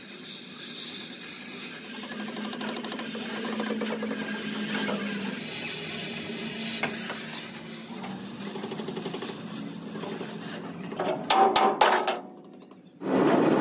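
Oxy-fuel cutting torch hissing steadily as it cuts through the steel plate of a crane boom. Near the end, a few hammer blows ring out sharply on the steel, the loudest sounds.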